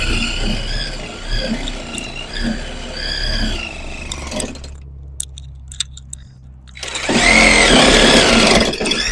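Reciprocating saw (Sawzall) cutting through a boat's wooden board, its whine rising and falling. It stops for about two seconds, then starts again louder near the end.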